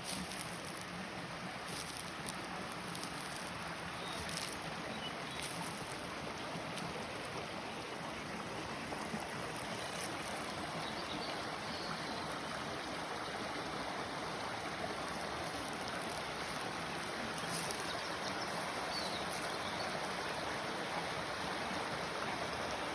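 Steady rush of running water, such as a stream, growing a little louder about halfway through.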